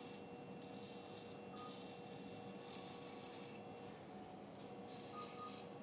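Electrocautery pencil cutting through tissue in short bursts, a faint hiss switching on and off three times over the steady hum of operating-room equipment, with a few brief beeps.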